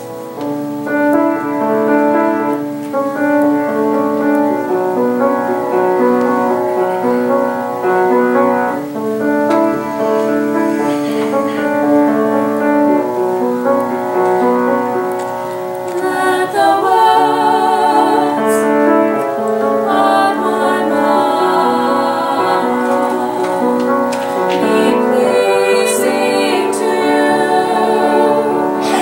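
Piano playing a slow introduction, then a trio of women's voices comes in about halfway through, singing together with vibrato over the piano accompaniment.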